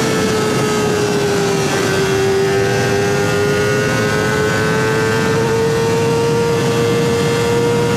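Kawasaki ZX-25R's 250 cc inline-four running at high revs through a DX Generation Sphere aftermarket exhaust. The engine note dips slightly about two seconds in, then climbs slowly and steadily.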